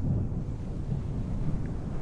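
Airbus helicopter running: a low, uneven rumble of rotor and engine, with wind buffeting the microphone.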